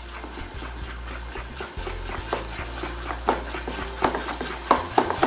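A spoon stirring thick cake batter in a bowl, rubbing and clicking against the sides, with the strokes getting louder and quicker in the second half, over a low steady hum.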